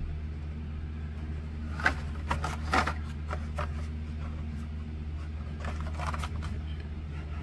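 Carded blister packs of toy cars being handled and swapped: scattered crinkles and clicks of plastic and cardboard, clustered about two seconds in and again around six seconds, over a steady low hum.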